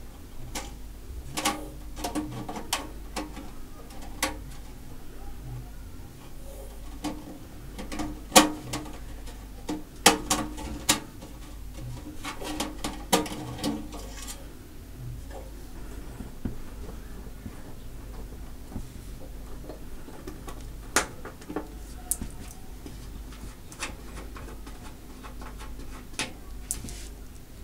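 Hands handling a steel computer case and a mesh dust filter: scattered sharp clicks, taps and knocks, densest and loudest in the first half, over a faint steady hum.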